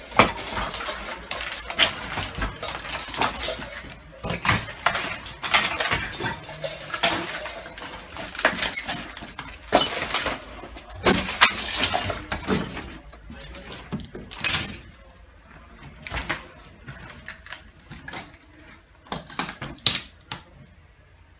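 Footsteps crunching and scraping over debris in an explosion-wrecked house, an irregular stream of clicks and clinks that thins out in the last few seconds.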